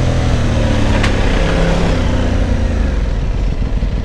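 Aprilia Tuono 660's parallel-twin engine, its note falling steadily as the rider rolls off and the bike slows, then settling into a low rumble with road and wind noise. A brief tick comes about a second in.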